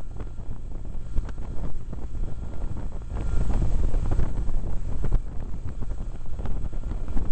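Wind buffeting the microphone of a moving motorcycle, with the low drone of a BMW R1200GS Adventure's boxer-twin engine underneath; the buffeting swells a few seconds in.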